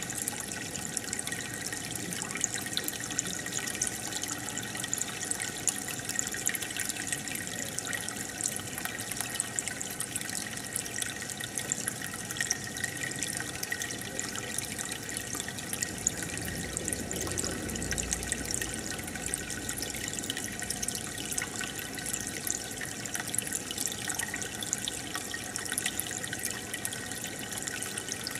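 Water bubbling and trickling steadily in an aquarium from its filter and air bubbles, with a fine crackle of small pops.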